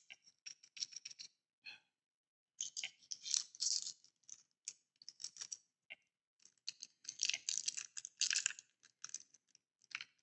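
A small plastic parts bag crinkling and rustling in irregular bursts as it is opened and tiny screws are shaken out, with light clicks among the crackle.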